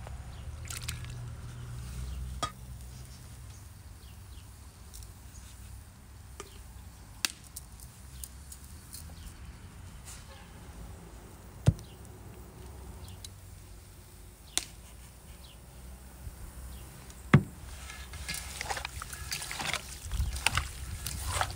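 Raw beef liver being seasoned and mixed by hand in an enamel bowl: a few sharp clicks and knocks, the loudest two about halfway and a little later, then wet squelching as the liver is kneaded near the end.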